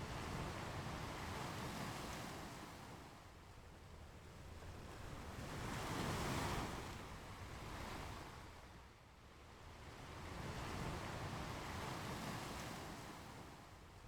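Ocean waves washing onto a beach: the surf swells and fades in slow surges every four to five seconds, the loudest wave about halfway through.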